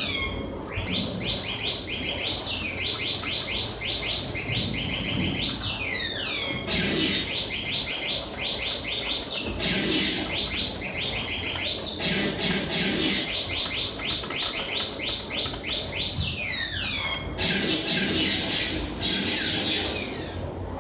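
R2-D2 droid sound effect playing back: rapid strings of high electronic beeps and chirps, broken by several falling whistles, with a lower warble underneath.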